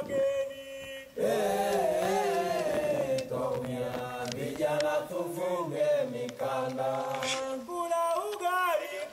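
A group of people singing a chant together, several voices at once, starting about a second in.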